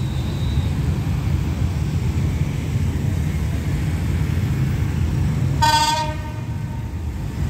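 Alsthom diesel-electric locomotive giving one short horn blast about six seconds in as it approaches, over a steady low rumble.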